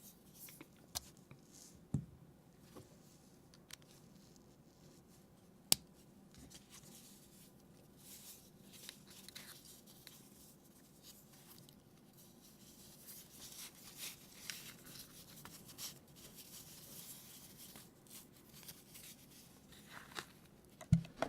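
Faint handling noises of small objects: a few sharp clicks early on, the loudest about six seconds in, then soft scraping and rustling.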